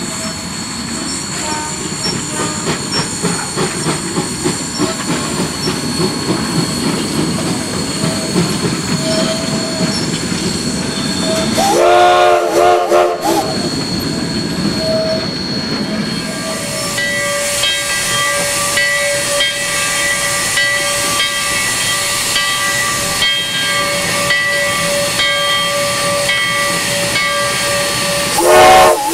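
A narrow-gauge steam freight train rolling past, its cars rumbling and clicking over the rail joints. About twelve seconds in, the steam whistle of 1881 Baldwin locomotive No. 346 gives a few short blasts, sounding several notes at once. After that comes a steady hiss of steam with high ringing tones, and the whistle starts to blow again right at the end.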